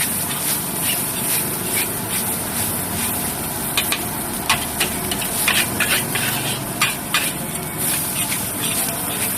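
Nasi goreng being stir-fried with sauce in a hot wok: a steady sizzle under frequent sharp clanks of the metal spatula striking the wok, busiest around the middle.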